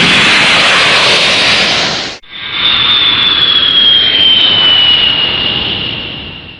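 Two sound-effect clips played back to back. The first is a loud rushing roar that cuts off abruptly about two seconds in. The second is a jet-engine-like roar with a high whine that slowly falls in pitch and fades out near the end.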